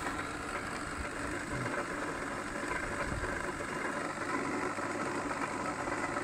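Old Cooksley belt linisher running steadily, its electric motor driving the belt through V-belt pulleys with a low, even hum. It is nice and quiet when running.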